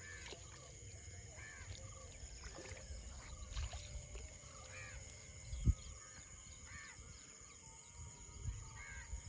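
Outdoor waterside ambience: birds giving short chirping calls every second or two over a steady high insect hum. There is one dull thump a little past halfway.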